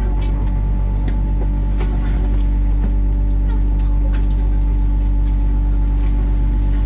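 Bus engine running at a steady, unchanging speed, a deep hum of even tones, with scattered light rattles and clicks.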